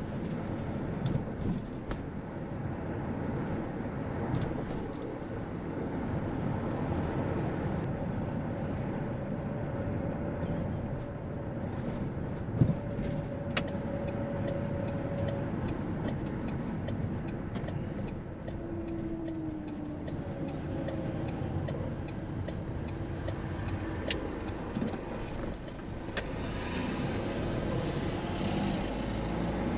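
Steady road-vehicle and traffic noise. For about twelve seconds in the middle, a regular ticking runs at about two ticks a second.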